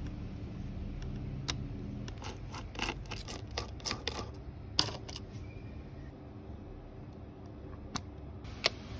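Small metal tools clicking and tapping on laptop parts: tweezers prying off cable connectors and a precision screwdriver working the heatsink screws. There is a quick run of irregular clicks in the first half and two single clicks near the end, over a low steady hum.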